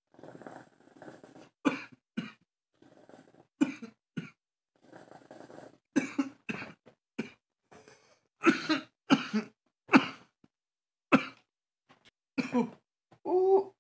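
A man coughing hard in a long fit of repeated coughs after a hit of smoke from a glass rig, with softer breathy rasps between them early on. The coughs grow louder about halfway through and end in a throaty hack near the end.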